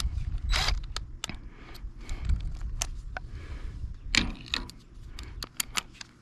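Hand tools clicking, knocking and scraping against metal as a Torx driver is set to the screws of the ignition coil on a Stihl trimmer's engine; the clicks come irregularly and bunch together near the end.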